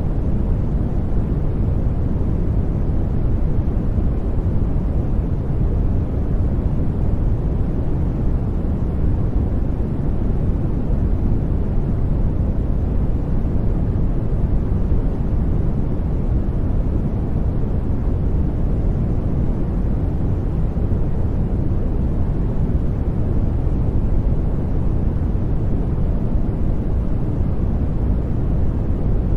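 Continuous brown noise: a steady, deep rushing hiss, strongest in the bass and fading toward the highs, with no change or events.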